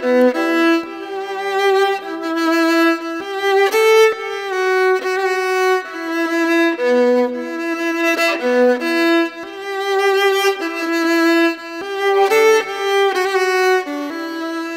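Instrumental music: a single melody line moving between quick and held notes.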